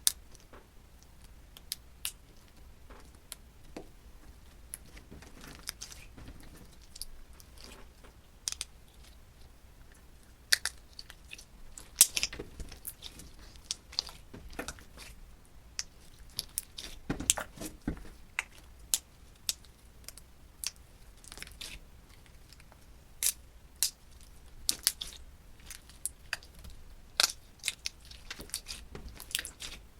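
Slime being squeezed and pressed by hand, giving irregular sharp crackles and small pops, more frequent in the last few seconds.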